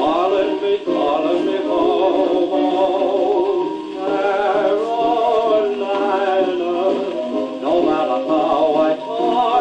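An old dance-band record playing on a turntable: the band plays with a male voice singing. The sound is thin, with little bass.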